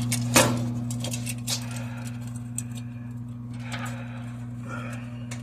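Light metallic clicks and clinks from hand tools working on a drain pipe coupling, with a sharp knock about half a second in, over a steady low hum.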